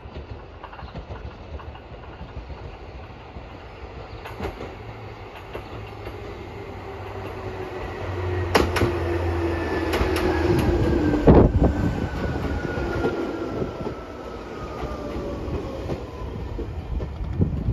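Electric commuter train running into the platform, its motor whine falling in pitch as it slows. The rumble builds as it comes close, with three sharp clacks of wheels over rail joints about halfway through.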